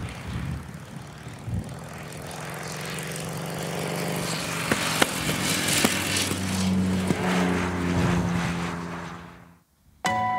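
Motorcycle engine approaching and growing louder, heard through an auditorium's loudspeakers, until it cuts off abruptly about nine and a half seconds in. It is followed at once by a short, bright ringing chime.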